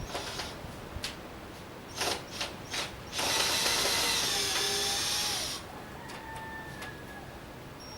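Diamond saw blade briefly cutting into hard red porphyry for about two and a half seconds, a loud hissing grind with a faint whine through it, starting about three seconds in. Scattered clicks and knocks of the machine and stone come before and after it.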